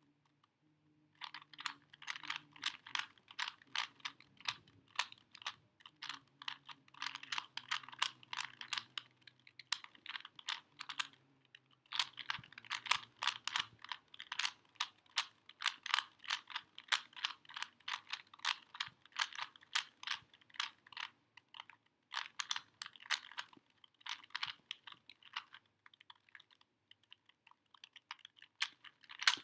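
Plastic Rubik's Cube being turned quickly by hand: fast runs of clicking from its layers snapping round, broken by short pauses.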